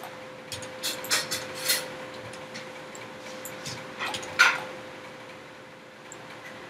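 Light clicks of a computer mouse and keyboard, several in the first two seconds, with one louder short sound about four seconds in, over a steady faint electrical hum.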